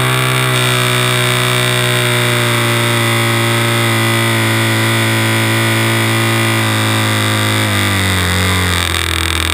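RC Cub model airplane's motor and propeller heard from on board, a steady droning note with air rushing past the airframe. The pitch steps down about eight seconds in and again near the end as the throttle is pulled back.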